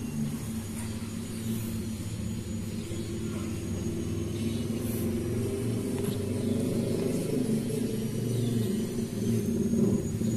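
Steady low engine rumble running throughout, with no clear revving.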